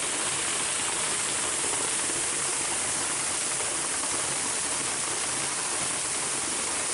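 Waterfall on a mountain stream: steady, loud rush of falling water.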